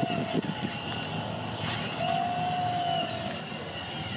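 Hydraulic pump of a radio-controlled Komatsu PC360 excavator model whining, its pitch bending up as it comes under load twice, near the start and again about two seconds in, over a steady high whine. Loose soil rattles briefly as the bucket is emptied at the start.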